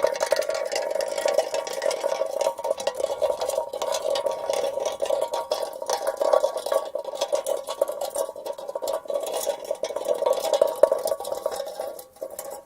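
Empty aluminium drink can rolling over asphalt: a steady metallic rattle of rapid small clicks over the can's ringing tone, which trails off near the end.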